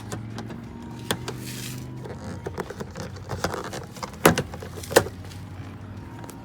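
Sharp clicks and knocks of plastic and metal trim parts being handled and pulled off a Honda Civic door, loudest about four and five seconds in, over a steady low hum.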